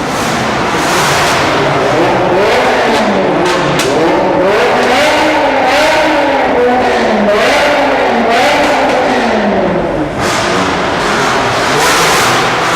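Car engine being revved repeatedly while stationary, its pitch climbing and falling in a series of rev blips, with a short drop near the end before it picks up again.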